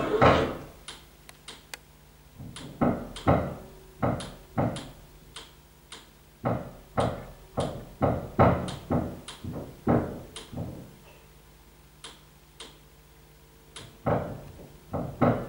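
A string of sharp taps or knocks, irregular but often about three a second, with a short pause about two-thirds of the way through, over a faint steady hum.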